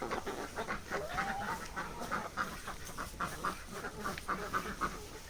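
Farm poultry calling in a quick run of short, repeated notes, about four or five a second.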